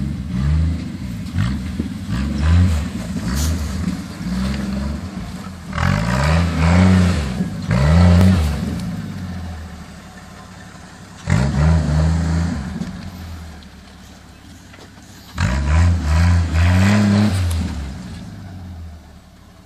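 1977 Jeep CJ-5's 3.8-litre straight-six engine revving up in repeated bursts, rising in pitch about four times, as the Jeep pushes through deep snow. During the hardest pulls there is a hiss of its mud tyres churning the snow.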